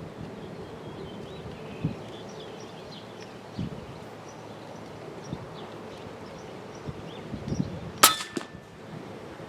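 A single shot from a .30-calibre FX Impact M3 PCP air rifle about eight seconds in: a sharp crack with a brief ring, followed shortly by a fainter click. Light wind and low handling thumps come before it.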